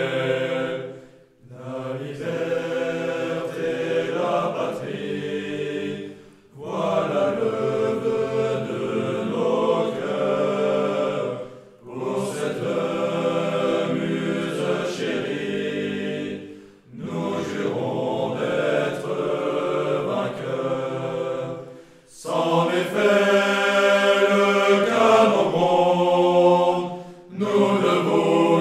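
A choir singing a French military song, phrase after phrase of about five seconds, with a brief breath between each.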